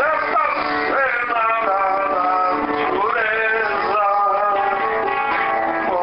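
Guitar music: an acoustic guitar with a melody line of long held notes, several of them sliding up into pitch at the start of a phrase.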